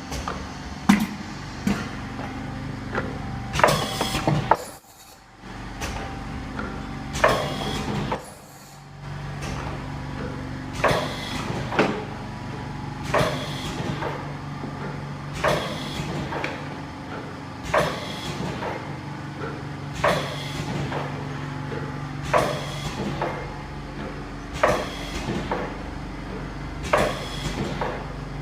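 Automatic turntable ultrasonic tube sealing machine running: a steady mechanical hum with a sharp clunk about every two and a quarter seconds as it cycles. The sound briefly drops out twice in the first nine seconds.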